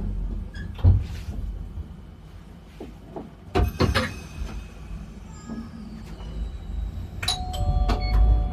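Keifuku Randen tram standing at a station with a low hum. A sharp clunk comes about a second in and a cluster of louder clunks comes at about three and a half to four seconds, then several short electronic tones sound near the end.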